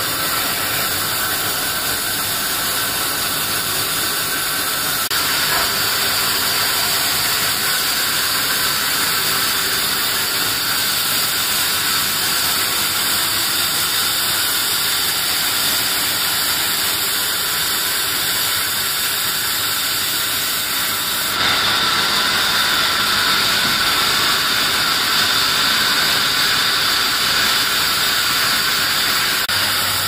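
Band saw resawing a teak plank lengthwise: the steady, bright rushing noise of the running blade cutting through the wood. It gets louder about two-thirds of the way through.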